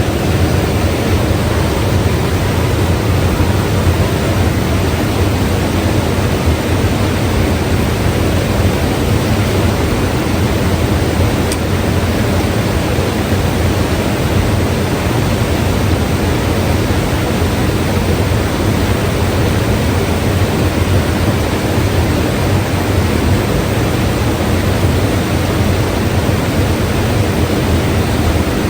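Mountain river rushing, a steady full roar of flowing water with no breaks.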